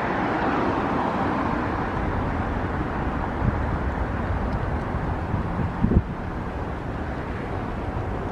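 Jet airliner engine noise, a steady rush and rumble that slowly fades, with wind buffeting the microphone about six seconds in.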